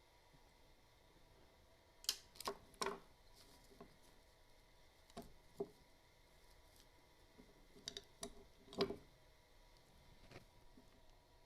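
Scattered sharp clicks and clinks of small metal parts and tools being handled while an old spring-motor gear train is taken apart: a few in quick succession about two seconds in, a couple more in the middle, and another cluster near the end, the loudest of them about nine seconds in.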